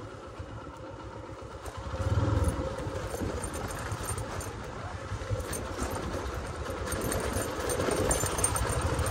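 Motorcycle engine running as the bike is ridden, with a louder surge about two seconds in and the sound slowly growing louder toward the end.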